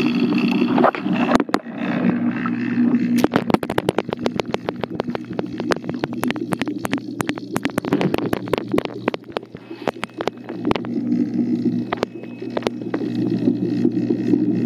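Steady low hum of aquarium pumps and filters with some bubbling water, picked up close to the tank. A dense run of sharp clicks and taps starts about three seconds in and dies away a little after ten seconds.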